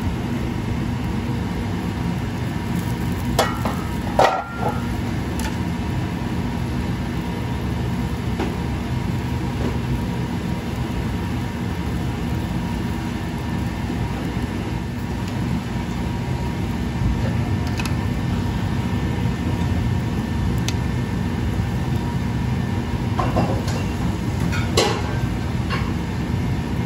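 Steady low rumble of a restaurant kitchen's lit gas range while pans simmer. Sharp metal clinks come about four seconds in and again near the end, where steel tongs work in a steel frying pan.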